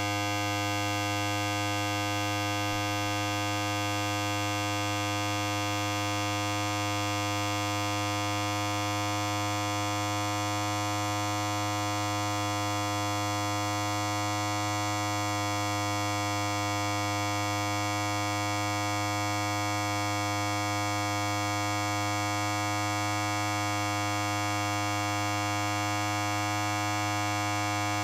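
Electric hair clipper running continuously, a steady, even buzz with a strong low hum.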